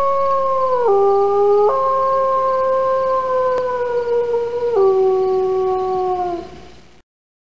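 A wolf howling: one long, drawn-out howl that breaks down in pitch about a second in, climbs back, drops again near five seconds, and fades away after about six seconds.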